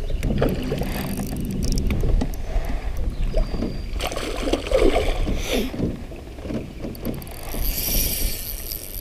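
A spinning reel cranked hard for the first two seconds, then a hooked bass thrashing and splashing at the surface about four seconds in, with wind rumbling on the microphone.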